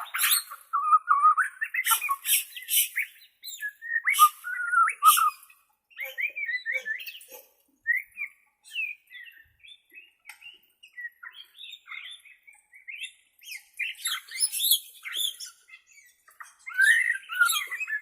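Borneo white-rumped shama (murai batu) singing a varied string of whistled phrases and chirps mixed with harsh, rasping notes. The song thins out in the middle and picks up again near the end.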